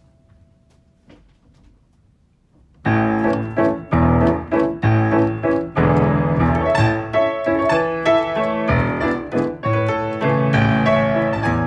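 After about three seconds of quiet, recorded solo piano music starts, with strongly accented notes and chords in a steady pulse: the accompaniment for a ballet variation.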